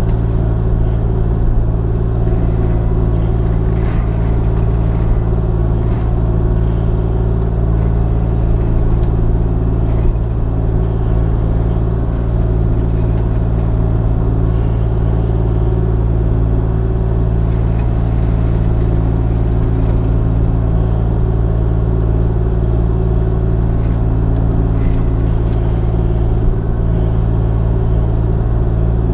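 Kubota KX040 mini excavator's diesel engine running steadily while working a Brush Hound FX-26 Defender hydraulic brush mulcher, a constant low drone. A few faint ticks are scattered through it.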